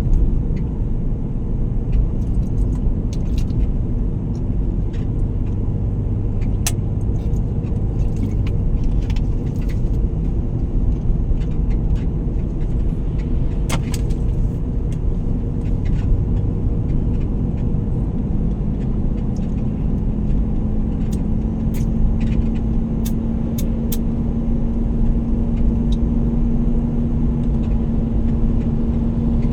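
A motor vehicle driving, with a steady engine and road rumble. A low engine tone rises slightly about two-thirds of the way through, and light rattling clicks come scattered throughout.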